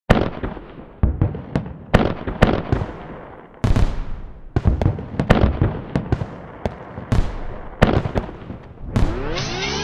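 Fireworks exploding: an irregular run of about twenty sharp bangs, each fading quickly. Near the end a rising, sweeping tone sets in.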